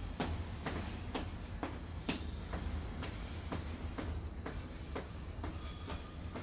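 A skipping rope slapping a concrete floor as a person jumps, in a steady rhythm of about two slaps a second.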